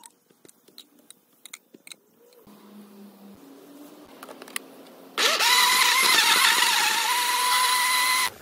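A few light clicks and knocks, then about five seconds in a countertop blender's motor starts abruptly, spins up quickly and runs steadily at high speed, pureeing charred tomatillos, onion and cilantro into salsa verde, before it stops suddenly near the end.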